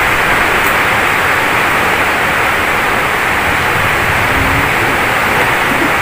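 A steady, loud hiss like static that cuts off suddenly at the end.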